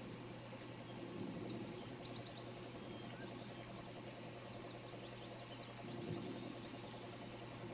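Steady rain hiss with small birds giving brief high chirps throughout, a quick run of them a little past two seconds and more around five seconds.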